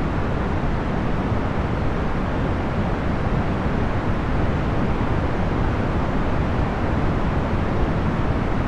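Procedurally generated box fan noise: a steady, even whoosh weighted to the low end, with no hum, tone or rhythm.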